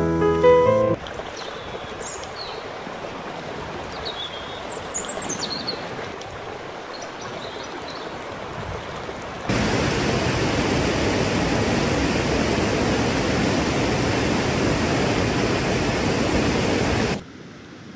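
Piano music cuts off about a second in, giving way to the steady rush of a swollen river, with a few high chirps over it. About nine and a half seconds in the rushing water jumps suddenly louder and fuller, the sound of rapids, then drops away near the end.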